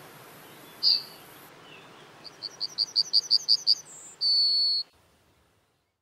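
Yellowhammer song: about ten short notes repeated quickly and growing louder, then a brief higher note and a long drawn-out lower final note, the classic 'wie wie wie hab ich Dich liiiieb' phrase. A single short note comes about a second in.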